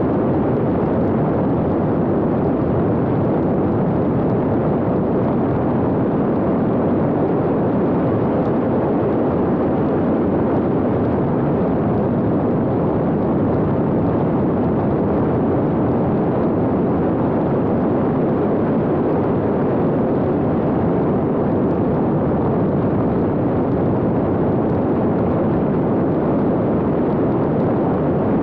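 Steady rushing noise of an X-UAV Talon fixed-wing drone in cruise flight, heard from its onboard camera: wind over the airframe and microphone mixed with propeller noise, with no change in level.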